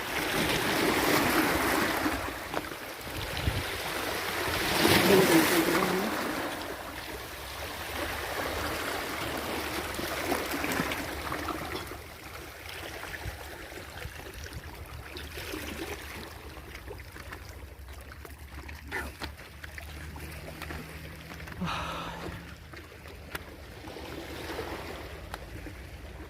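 Water splashing and sloshing, loudest in the first few seconds, then quieter with scattered knocks.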